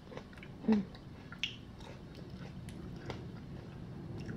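A few light clicks and knocks over a low steady hum, the loudest about a second in: handling noise from the camera and the plastic food tub.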